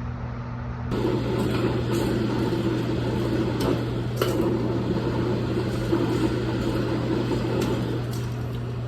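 A steady low mechanical hum, like a fan or motor, with a few faint clicks and knocks.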